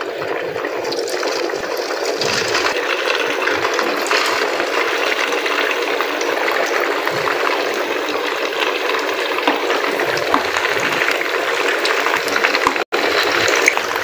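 Minced-meat and potato kebabs shallow-frying in ghee in a frying pan: a steady sizzle with small crackles. It cuts out for an instant near the end.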